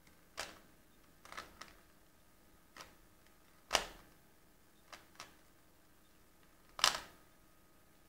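Plastic Rubik's Cube layers being turned by hand, each turn a sharp clack: about nine at uneven intervals, some in quick pairs, with two louder ones in the middle and near the end.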